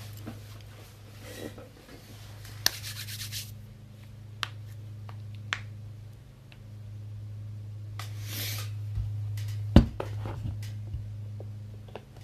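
Small handling noises at a desk: scattered clicks and knocks, the loudest near the end, and two short rubbing rustles about three and eight seconds in, over a steady low electrical hum.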